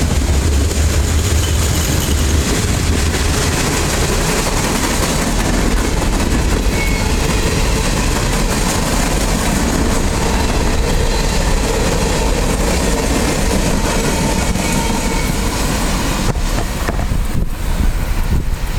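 Freight cars of a long CSX rock train rolling past at track side, a steady loud rumble and rush of steel wheels on rail.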